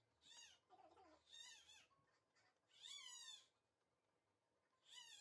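Newborn baby, about a month old, crying faintly in short wails, four of them, the longest about three seconds in.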